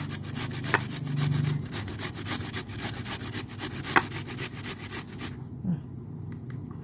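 Onion being grated by hand on a grater: a quick, rhythmic scraping of strokes that stops about five seconds in.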